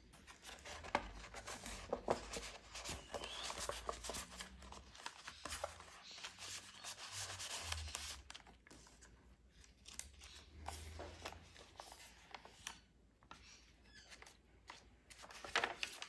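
Paper cards and pages of a handmade journal rustling and sliding under the hands as a card is drawn from a pocket and the pages are handled, with small rubs and scrapes throughout. It goes quieter for a couple of seconds near the end.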